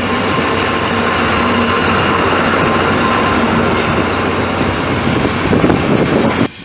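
Passenger coaches of a locomotive-hauled train rolling past on the track, a steady rumble of wheels on rails, with a high thin squeal over the first second. The sound drops off abruptly just before the end.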